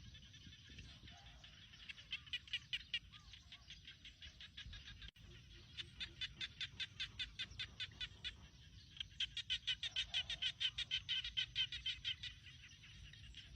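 Rural countryside ambience: runs of rapid, evenly repeated high chirps, about seven a second, that start and stop three times, over a low steady rumble and a few faint lower calls.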